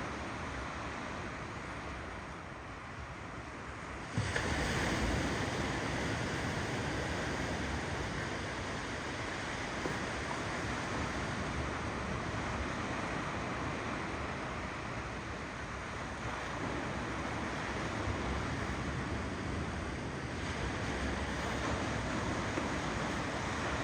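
Ocean waves rolling and breaking on a shore, a steady rushing surf that gets suddenly louder about four seconds in.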